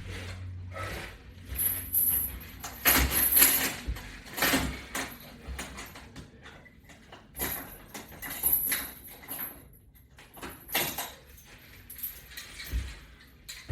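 Irregular knocks, clinks and rubbing sounds from a resistance-band workout system being worked through exercise repetitions, some strokes loud and others faint.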